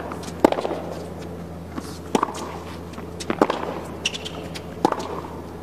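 Tennis ball struck back and forth in a baseline rally on a hard court: four sharp hits about a second and a half apart, over a low steady hum.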